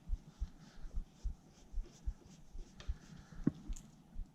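Irregular light knocks and small clicks of hands handling the scooter's mounting bolts and parts during assembly.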